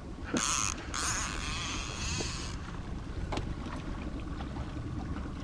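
Water splashing hard beside the boat as a landlocked salmon thrashes at the landing net: a short splash about half a second in, then a longer one lasting about a second and a half. Under it, the steady low rumble of the boat's motor at trolling speed.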